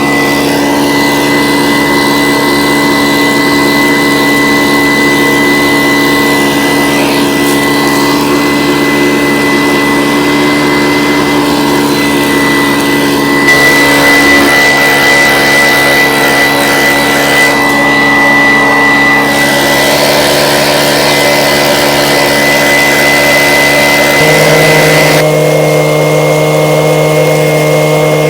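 Prospecting vacuum sucking gravel from bedrock cracks: its motor runs steadily with a thin high whine, and its pitch steps to a different note near the end.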